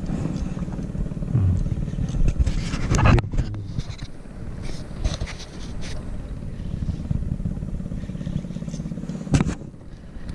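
Small petrol engine on a wooden fishing boat running steadily with a low, fast-pulsing hum, with a clatter of knocks about three seconds in and a sharp knock near the end.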